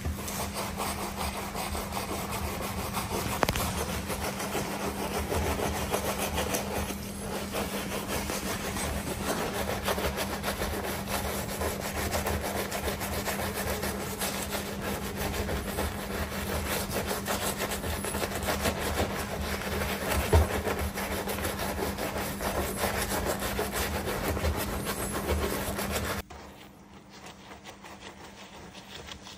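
Soft detailing brush scrubbing soapy foam over car paint and badge lettering: a continuous, irregular bristly rubbing over a steady low hum. Both drop off sharply near the end.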